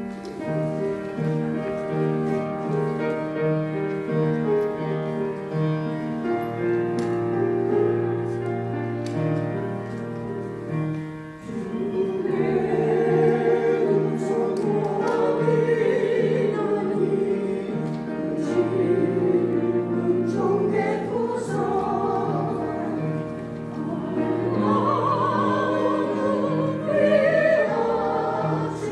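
Keyboard introduction of sustained chords over a steady pulsing bass, then about twelve seconds in a choir enters, singing with vibrato to the accompaniment.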